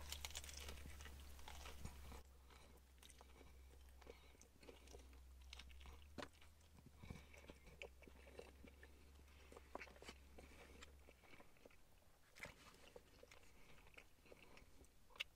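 A person biting into and chewing a crispy chicken burger with bacon, faint, with a small crunch at the bite and scattered soft crunches and mouth clicks while chewing.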